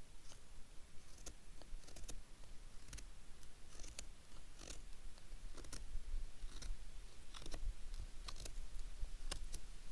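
Knife blade carving thin shavings from a stick of firewood to make a feather stick: a run of short, crisp scraping cuts at an uneven pace, about one or two a second.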